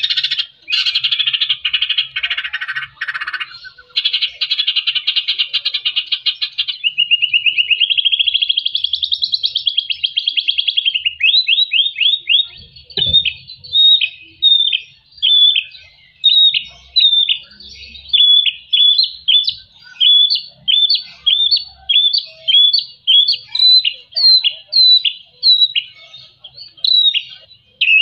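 White-rumped shama singing: a fast dry rattling trill for the first several seconds, then a short warbling phrase, then a long run of sharp down-slurred whistled notes, a little under two a second.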